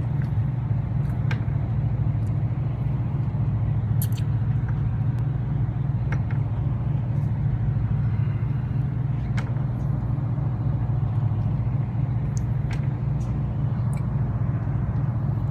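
Fishing boat's engine running at idle, a steady low hum, with a few sharp clicks from tackle on deck.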